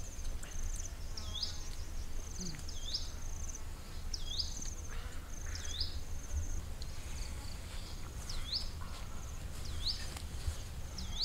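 A high-pitched animal call repeated about once a second, each a rapid trill followed by a quick dipping sweep, over a steady low rumble.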